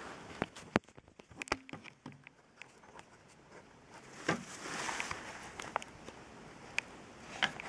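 Handling noise from a camera being picked up and moved: scattered small clicks and knocks with a soft rustle in the middle.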